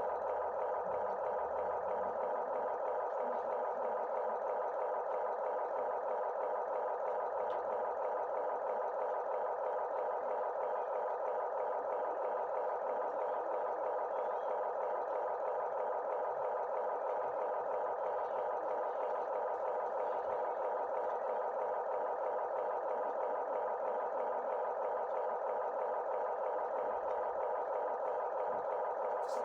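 Small electric motor and plastic gearing of an RC toy excavator running steadily, a constant mid-pitched whir.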